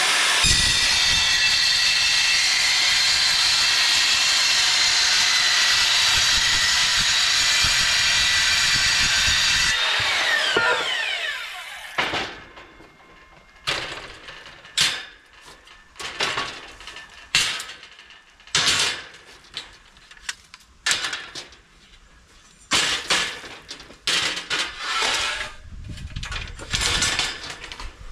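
A power tool with an abrasive wheel runs on steel for about ten seconds, then spins down with a falling whine. After that come short, sharp knocks and scrapes, roughly one a second.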